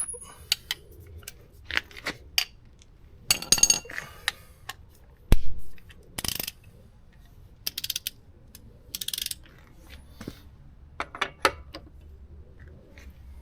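Metal hand tools being handled on a motorcycle's rear axle: scattered clinks, rattles and short clicking spells, with one loud thump about five seconds in.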